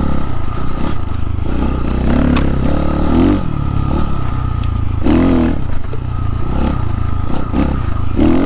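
XPro Templar X 250cc dirt bike engine, fitted with a 30mm NIBBI carburetor, running at trail speed with the throttle opened in short surges every few seconds. Clatter and scraping are mixed in as the bike works over rough woodland ground.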